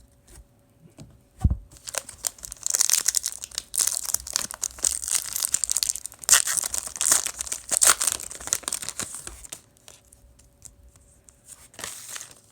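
A 2019 Certified football card pack being torn open, its wrapper tearing and crinkling for several seconds. There is a single thump about a second and a half in and a short crinkle near the end.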